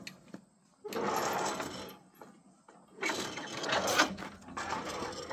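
Miniature-railroad turntable deck pushed round by hand, its rollers rumbling and rattling over the ring rail in two pushes, with a sharp knock about four seconds in. The deck still hangs up a bit, and the ring needs levelling.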